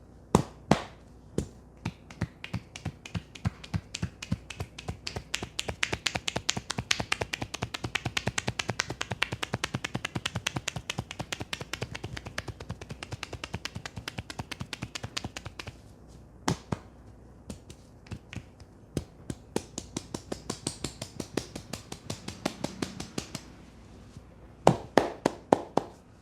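Hands striking a head and neck in a percussive Indian head massage, a fast run of sharp slaps and taps, many a second. Later the run thins to scattered single taps, with a few louder cracks near the start, about two-thirds through and near the end.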